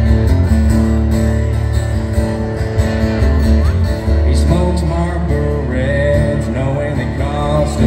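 Live country music: a solo acoustic guitar strummed through a PA system, with the singer's voice coming in about halfway through.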